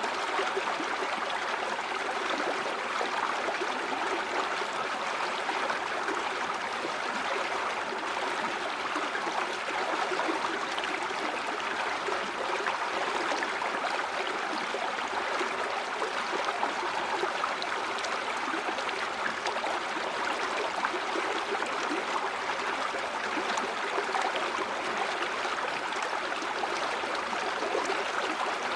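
River water flowing and babbling over stones in a steady, unbroken rush.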